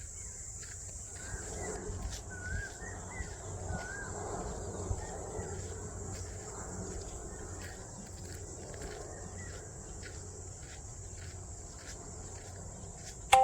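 A steady, high-pitched chorus of insects trilling, with faint walking footsteps about twice a second underneath.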